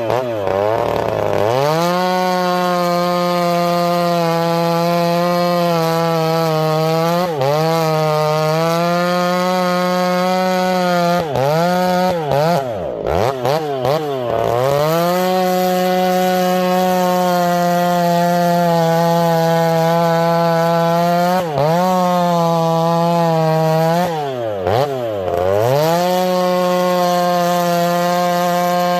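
Two-stroke chainsaw running at full throttle, cutting wood. Its high, steady engine note dips sharply and recovers about six times.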